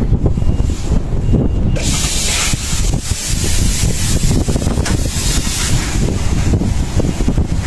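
Moving vehicle heard up close: a steady low rumble with wind buffeting the microphone. A loud rushing hiss joins it about two seconds in. Faint short beeps sound about once a second in the first second or two.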